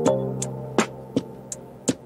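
Background music: a plucked chord fading out over a steady ticking beat of about two and a half ticks a second.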